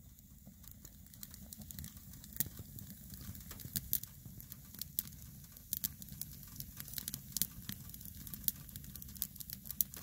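Split firewood burning in a wood stove's firebox, crackling with irregular sharp pops and snaps over a low steady rush of the fire.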